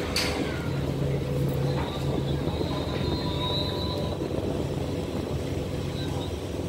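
Ferry's engines running with a steady low rumble, heard from the passenger deck, with a faint thin whine above it.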